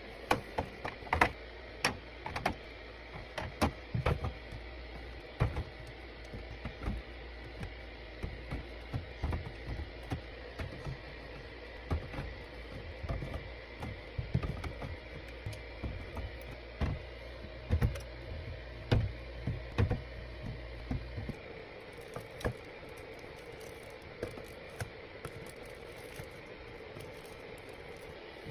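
Irregular taps, clicks and clinks of containers and packaging being handled and set down while restocking, over a low steady hum that stops about three quarters of the way through.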